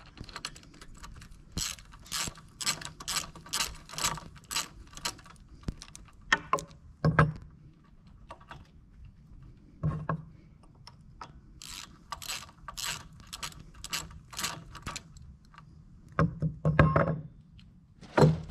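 Socket ratchet wrench clicking in quick runs, about three clicks a second, as bolts on the mini excavator's thumb mounting bracket are turned out, with a few heavier metal knocks in between.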